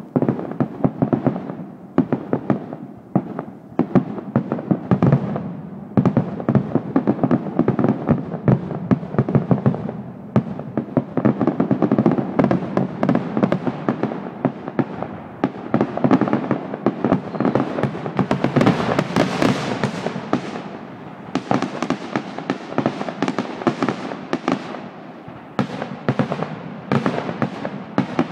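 Fireworks grand finale: a dense barrage of aerial shell bursts, many bangs overlapping with barely a pause.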